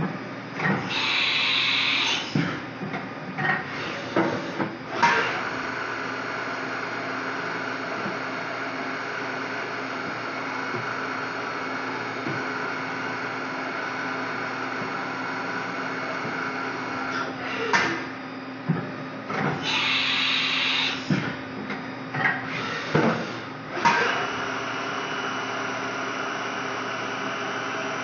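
2008 Haas VF-2B vertical machining center running under power: a steady hum with several held tones, as the table traverses on its axes. There are two brief, louder high-pitched whirs, one about a second in and one about twenty seconds in, and a few clunks.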